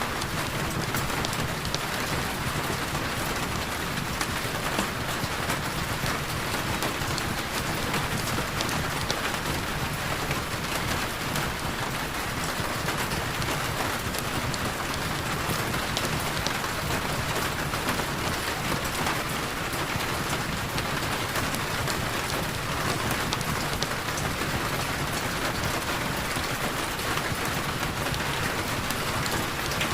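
Heavy rain falling steadily: a dense, even hiss peppered with countless small drop ticks.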